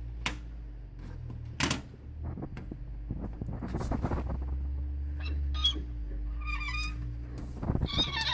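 Vintage Sunbeam humidifier's motor humming steadily without getting going, with several sharp clicks; the unit is not working. A few high chirping calls come in over the last three seconds.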